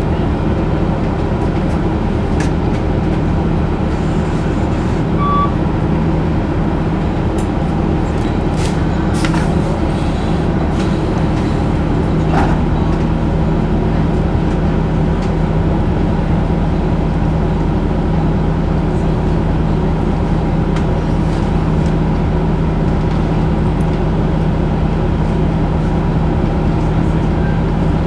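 Steady drivetrain hum of an Orion VII Hybrid first-generation transit bus, heard from inside the cabin: a low, even multi-tone drone with a strong steady hum and a faint brief whine about halfway through.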